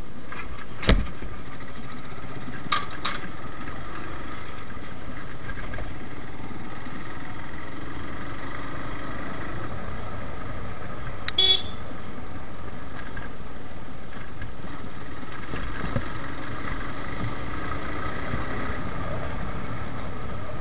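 Suzuki Gixxer motorcycle's single-cylinder engine running steadily under a constant rush of riding noise. A sharp knock comes about a second in, and a brief horn toot about halfway through.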